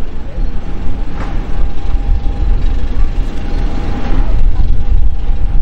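Twin jet engines of an Airbus A321 airliner at takeoff power as it rolls and lifts off: a loud, steady rush with a constant whine over a heavy low rumble.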